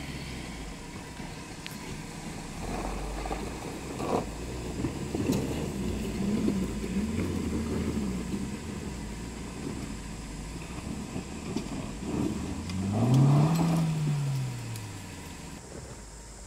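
Small four-cylinder SUV engine driving off-road, revving up and back down about thirteen seconds in, where it is loudest, with a few knocks along the way.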